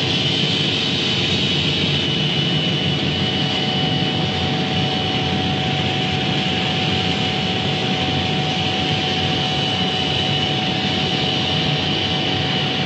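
Laser cutting machine running on leather: a steady rushing hum with a constant high whine and a fainter lower tone.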